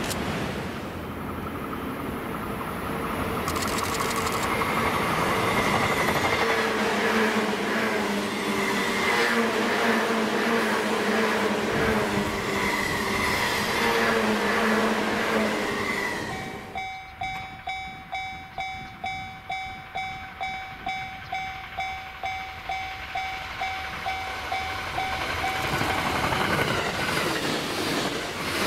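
A train running past with a steady rumble and a faint hum. A little past halfway the rumble drops away and a level-crossing warning bell rings in steady pulses a little over twice a second. Train noise swells again near the end.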